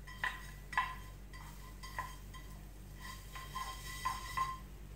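Nonstick frying pan giving a series of light metallic clinks, each ringing briefly, as butter is rubbed over it by hand.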